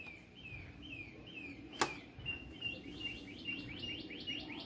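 A bird singing outside: a string of short, high, down-slurred chirps about three a second, which after about two seconds quickens to a rapid run of chirps. About two seconds in, a single sharp click of metal gears knocking as the transmission shafts are handled.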